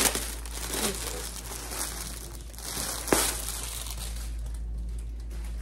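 Plastic crinkling and rustling as it is handled, with two sharp crackles, one at the start and one about three seconds in. It quiets down near the end.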